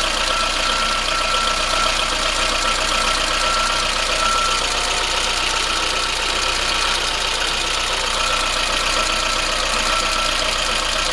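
Fuel-injected VAZ 21093 four-cylinder engine idling with a fast, even ticking knock from the top of the engine and a steady high whine. The owner hears the knock on a cold engine and most likely puts it down to the valves needing adjustment.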